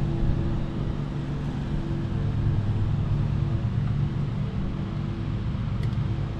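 Steady low machine hum with a few faint held tones above it, even in level throughout, and a faint click near the end.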